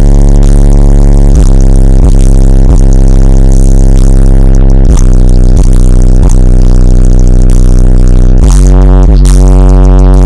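Pioneer TS-W2504SPL 10-inch subwoofer in a ported box tuned to about 30 Hz, playing very loud, deep, steady bass that distorts the recording. There are occasional short clicks, and the bass changes pitch about eight seconds in.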